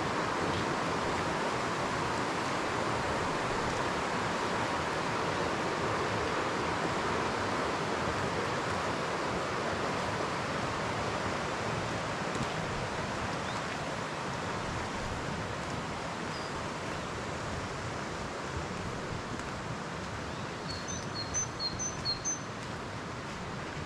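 Steady outdoor background noise, easing slightly, and near the end a bird gives four quick high chirps.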